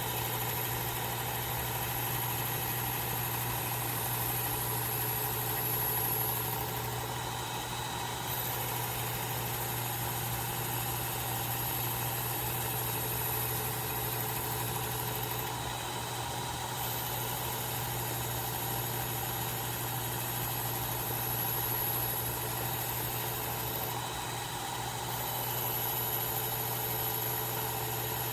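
Work Sharp electric belt sharpener running with a 1000-grit belt while a steel knife edge is refined on it: a steady motor hum under a thin, high grinding hiss that breaks off briefly three times.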